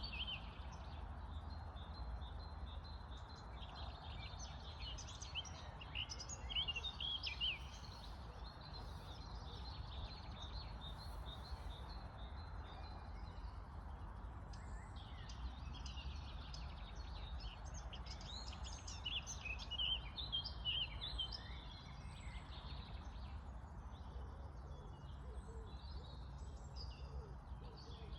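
Birds chirping and calling on and off over a steady low rumble.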